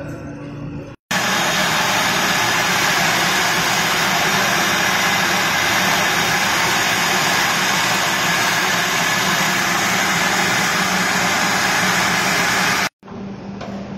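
Loud, steady candy-factory machinery noise: an even hiss over a constant low hum, starting abruptly about a second in and cutting off abruptly near the end.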